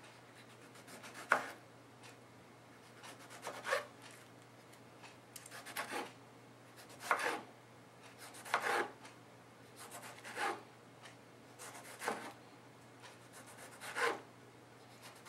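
Kitchen knife slicing a tomato into thin slices on a plastic cutting board: about eight short scraping strokes, one every one and a half to two seconds.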